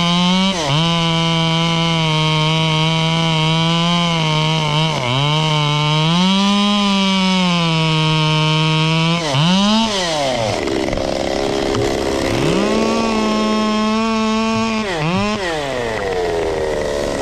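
Two-stroke chainsaw running at full throttle through a cut, its pitch dipping briefly a few times under load. About ten seconds in it is let off, then revs up again to a higher pitch, and near the end it drops back toward idle.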